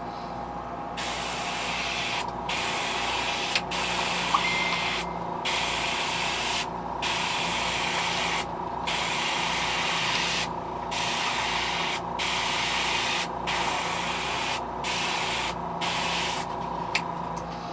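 Airbrush spraying paint in about eleven bursts of hiss, each a second or so long and split by a short pause as the trigger is let off and pressed again. The spraying starts about a second in and stops about a second before the end.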